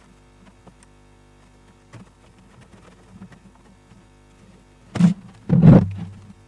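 Light handling clicks, then about five seconds in a sharp knock followed by a louder scraping thud as the hollow 3D-printed plastic model airplane is turned over and set down on the workbench.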